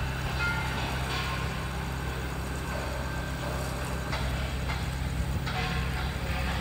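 Steady low drone of a distant engine running.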